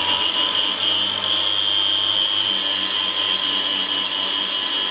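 Small benchtop wet tile saw with a diamond blade running at full speed, a steady high whine, as a white ceramic wall tile is fed into it for a cut.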